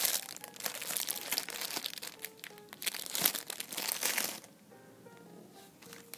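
Clear plastic bags crinkling as the foam squishy toys sealed inside are squeezed and handled, with quiet music under it. The crinkling stops about four and a half seconds in, leaving only the music.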